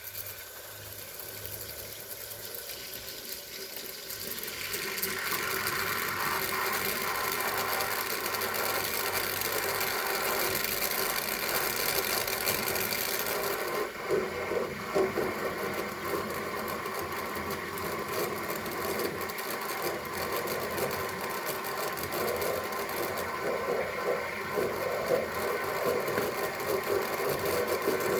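Steam cleaner running, hissing steam onto an iced-up refrigerator freezer evaporator to melt the ice off. The hiss grows louder about five seconds in and turns lower and sputtering around the middle.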